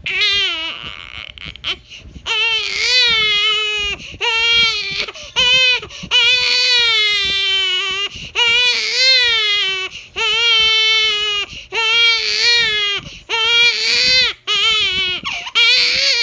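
Infant crying hard: a run of loud, high wails, each about half a second to two seconds long, broken by short gasps for breath.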